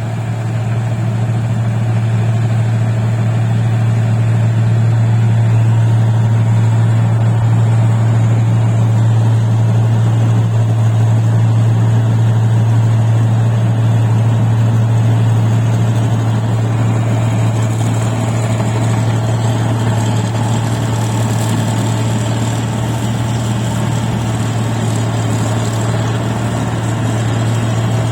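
Rice combine harvester's engine running steadily under load, a loud constant drone. From about two-thirds of the way in, more high-pitched mechanical noise joins it.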